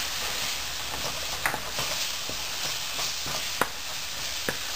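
Onion, tomato and ground-spice masala sizzling in oil in a non-stick frying pan, with a steady hiss, while a wooden spatula stirs it, giving scattered scrapes and taps against the pan.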